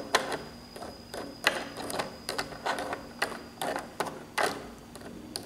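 A plastic toy spatula clacking and scraping against plastic toy food in a small plastic toy frying pan: light, irregular clicks and scrapes, two or three a second.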